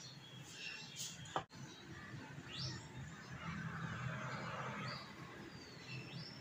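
Faint birds chirping in the background: a few short, separate chirps over low steady room noise, with a single click about a second and a half in.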